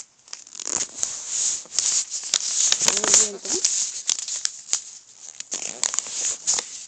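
A sheet of paper being folded and creased flat by hand, rustling and crinkling with many sharp crackles.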